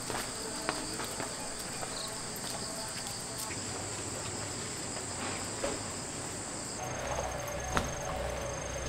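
Cicadas buzzing in a steady, shrill, high drone. About seven seconds in, the sound changes to a fast pulsing insect trill over a low hum.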